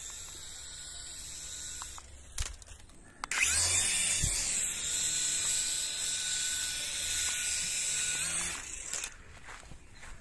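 Small electric motor and spinning rotors of a toy remote-control mini helicopter whirring in flight, a steady high whine. It breaks off about two seconds in with a couple of clicks, comes back louder, and cuts out near the end.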